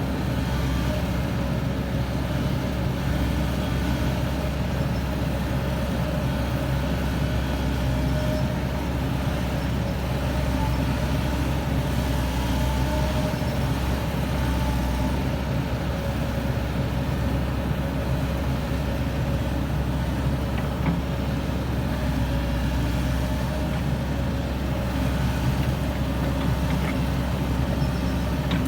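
Heavy diesel engine running steadily, a deep even hum with no revving or change in pace.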